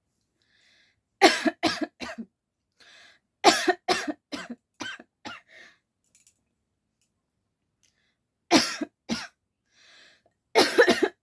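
A woman coughing on purpose in quick fits of several coughs each, with short breaths drawn between fits. There are four fits in all, and a gap of about two seconds after the second.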